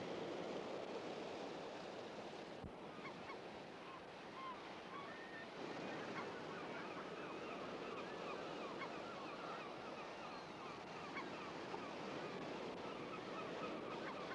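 A steady wash of surf with a chorus of many short bird calls over it, starting about three seconds in.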